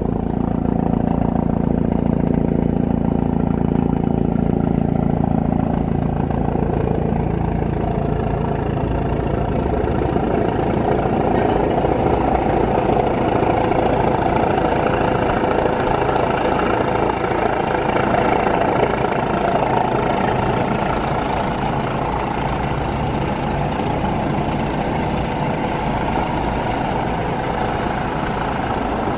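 Medical helicopter's engine and rotor running steadily overhead as it comes in to land. A deep hum dominates for the first several seconds, then gives way to a higher whine.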